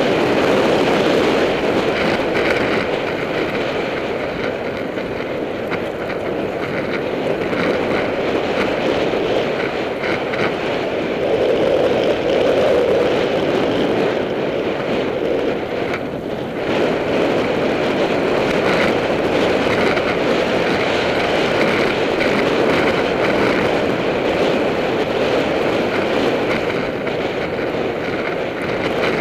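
Steady wind rush on a bike-mounted camera's microphone, mixed with mountain bike tyres rolling on loose dirt and small rattles and knocks from the bike over bumps as it rides fast downhill.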